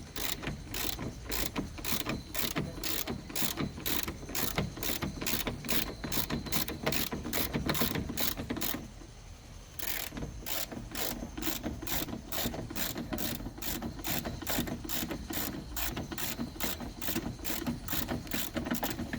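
Ratchet clicking steadily, about three to four clicks a second, as it turns a long extended T20 Torx bit to back out the outer door handle's retaining screw; it pauses for about a second roughly halfway through, then carries on.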